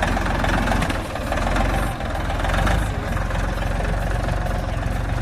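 Dongfeng tractor's diesel engine idling steadily just after being started, with a dense, even run of firing pulses.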